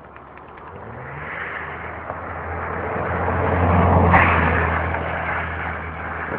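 A drifting car on a snow-covered road, its engine and tyres growing louder as it comes near, loudest as it slides past close about four seconds in, then fading as it moves away.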